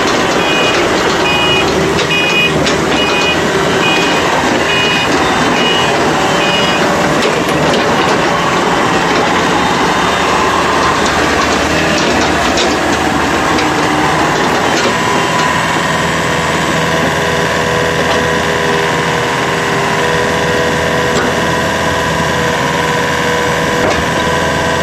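Komatsu small excavator's diesel engine and hydraulics running loud and steady. A two-tone travel alarm beeps about once a second for the first seven seconds. From about fifteen seconds in, a steady whine sits over the engine.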